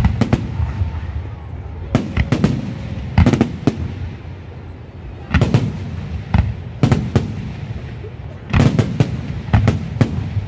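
Aerial firework shells bursting in a series of sharp bangs, mostly in quick clusters of two or three with gaps of about a second between, each bang trailing off in a low rumble.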